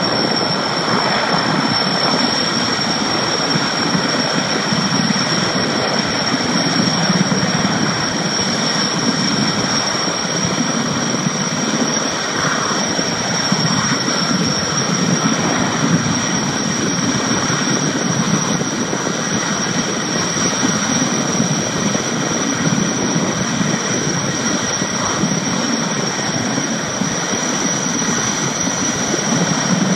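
Sikorsky S-64 Air-Crane firefighting helicopter hovering low over a lake while it draws water through its snorkel. The rotor and turbine engines run steadily, with a thin high turbine whine above the thick rotor noise.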